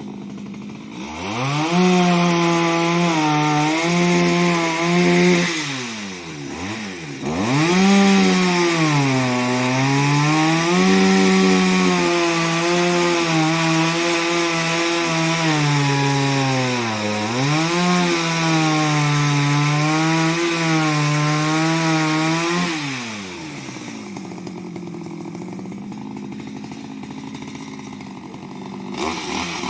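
Chainsaw revving up and cutting through wood, its pitch sagging and recovering under load. It drops back to idle briefly about six seconds in and again for the last several seconds, then revs up once more at the very end.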